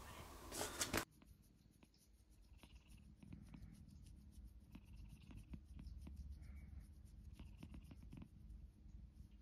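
A brief noisy rustle in the first second. Then a tabby cat purring softly while a finger strokes its face, with faint scratchy rubbing of the finger on its fur.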